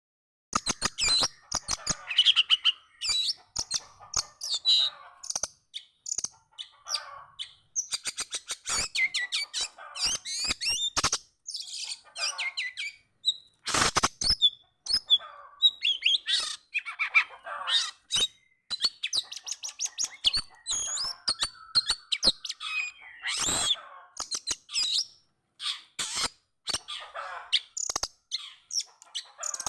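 Songbird chirping and calling in short, irregular phrases, with many sharp clicks between the calls.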